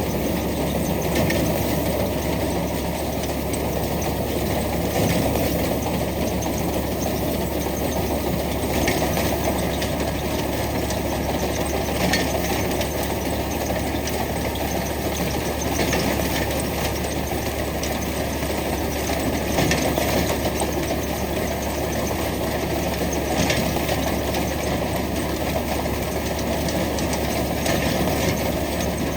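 Tractor engine running steadily while driving a tractor-mounted wheat reaper, with mechanical clatter from the machine and a sharper rattle every few seconds.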